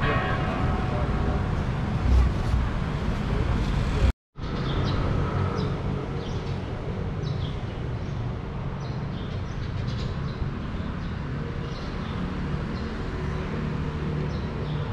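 Outdoor traffic noise, rumbling for about four seconds and breaking off abruptly. A steadier street hum follows, with scattered short, high chirps over it.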